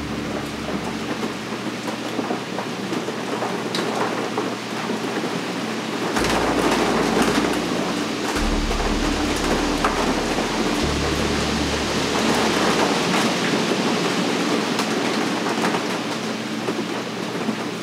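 Rain falling steadily, pattering on glass, getting louder about six seconds in.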